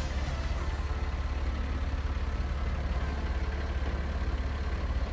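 Truck engine idling steadily with an even, fast, low throb.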